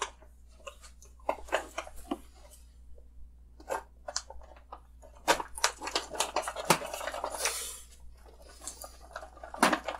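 Plastic bag of frozen pineapple chunks crinkling and rustling as chunks are shaken out into a blender jar, with irregular clicks and crackles that are busiest in the second half.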